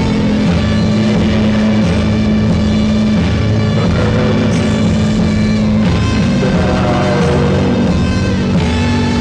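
Loud, dense heavy rock music: thick held chords that shift every couple of seconds, with cymbal crashes now and then.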